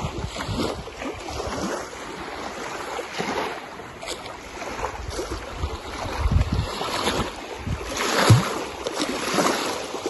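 Lake water lapping and splashing against a small boat, with wind gusting over the microphone in uneven low rumbles.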